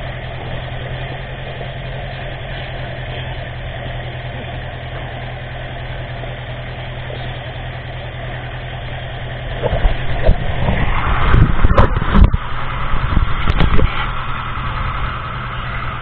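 Fishing boat's engine running at idle, a steady low drone. From about ten seconds in, loud irregular knocks and bumps break in over it.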